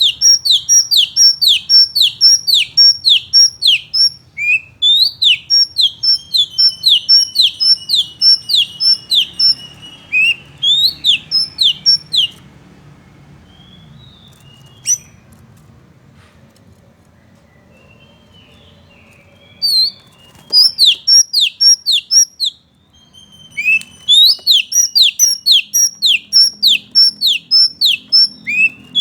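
Oriental magpie-robin (kacer) singing: long runs of loud, rapidly repeated downward-sweeping whistles, about three a second. The song breaks off for several seconds in the middle, with only a few scattered chirps, then starts again.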